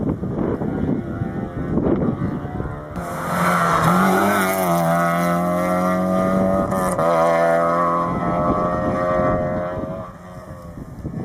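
Rally car engine at high revs climbing the stage, holding a steady note with short dips in pitch about four and seven seconds in, then fading away near the end. Wind noise on the microphone before the engine comes in.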